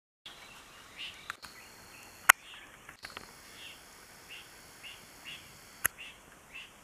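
Dawn bush ambience: a bird repeating a short chirping call about twice a second over faint background hiss. Three sharp clicks cut through it, the loudest a little over two seconds in.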